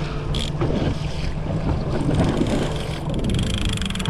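Yamaha outboard motor running at slow trolling pace, with water rushing along the inflatable hull, while line for a trolling lure is let out from a lever-drag reel. From about three seconds in, the reel's clicker ticks rapidly.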